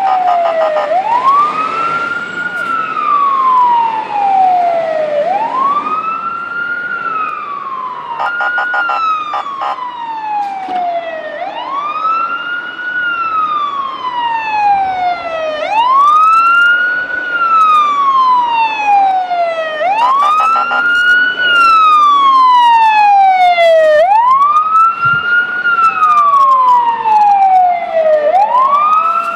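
Fire truck siren sounding a steady wail. Each cycle rises quickly, then falls slowly, about every four to five seconds, with shorter, higher falling sweeps and brief stuttering blasts heard over it at times.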